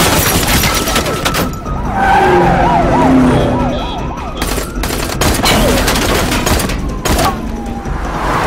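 Police car siren in a fast up-and-down yelp, with car traffic running underneath and several bursts of sharp bangs, one at the start and others about five and seven seconds in.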